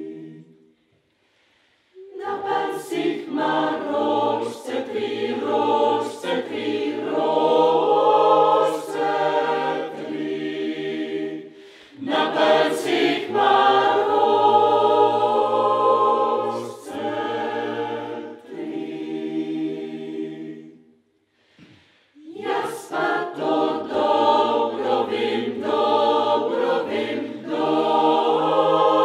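Choir singing a cappella in phrases, with a pause of about two seconds near the start and a brief break a little after twenty seconds.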